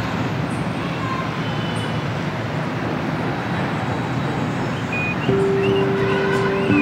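City street traffic ambience: a steady rush of passing vehicles. About five seconds in, held notes of music come in over it.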